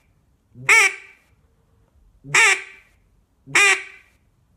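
Duck call blown with the hand held at the front of the call, giving three single quacks about a second and a half apart, each short and dropping in pitch: the basic mallard hen quack, voiced into the call with the word "quit" and spaced out.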